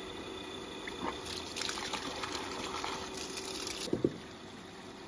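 Water gushing and splashing from a plastic tap just after its valve is turned open. There is a short thump about four seconds in, and after it a quieter stream runs on.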